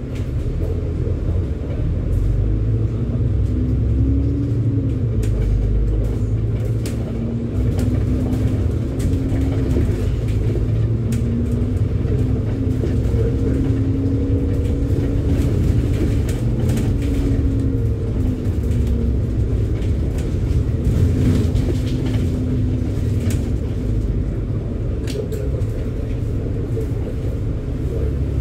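Double-decker bus heard from inside while driving: a steady low engine and road rumble, with the engine note rising and falling several times as it pulls along the winding road, and scattered rattles and clicks.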